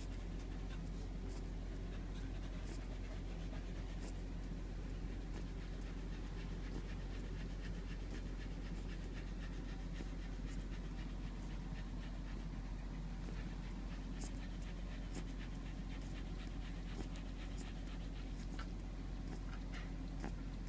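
Five-week-old Keeshond puppy suckling milk from a baby bottle, with quick breathing and scattered small sucking clicks at irregular spacing, over a steady low hum.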